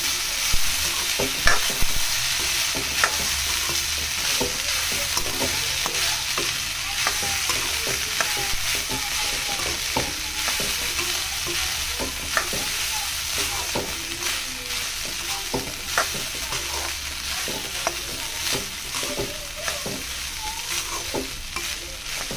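Metal spatula stirring and tossing rice in a metal kadhai, with irregular sharp scrapes and knocks against the pan over a steady sizzle of the hot tempering oil.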